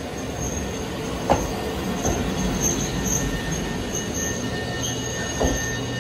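Eizan Railway 'Hiei' sightseeing railcar rolling slowly past at close range, its wheels squealing in thin high tones over a steady rumble. Three sharp knocks from the wheels over rail joints come about a second in, at two seconds and near the end. A low steady hum joins about two-thirds through.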